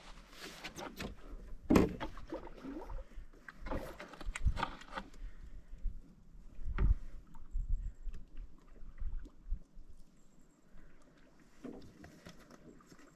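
Canoe at the water's edge, with irregular wooden knocks and clatters of paddles and gear against the hull and a little water noise; the loudest knock comes about two seconds in, and the knocks thin out in the second half.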